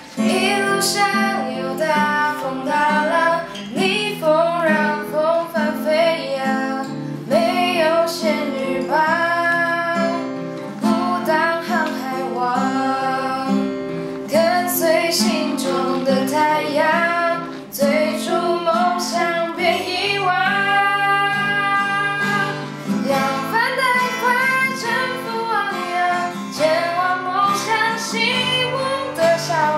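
A woman and a young man singing a Mandarin song together, unamplified, to a strummed acoustic guitar.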